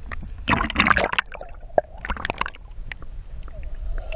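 Water splashing and gurgling around an action camera as it is dunked below the surface. It comes in two bursts, the first about half a second in and the second about two seconds in.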